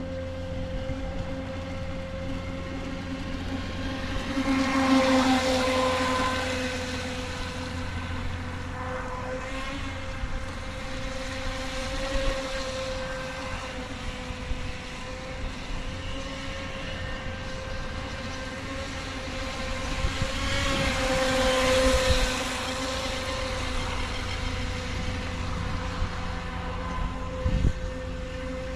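UDI 022 Tylosaurus electric RC speedboat running on the water: a steady motor whine with a hiss of spray, swelling louder twice, about five seconds in and again about twenty-one seconds in.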